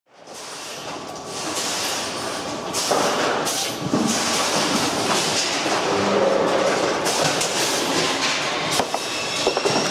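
Steady industrial machinery noise of a workshop floor, with scattered clanks and rattles, fading in from silence at the start.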